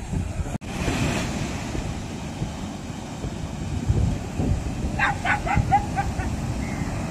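Surf washing up a sandy beach with wind on the microphone; about five seconds in, a dog gives a quick run of about six barks.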